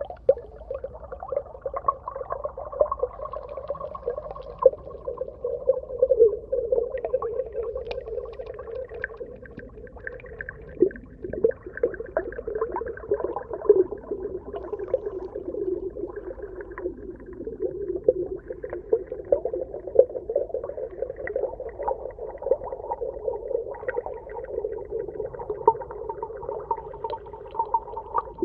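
Underwater ambience: a muffled, steady wash with many short crackles throughout.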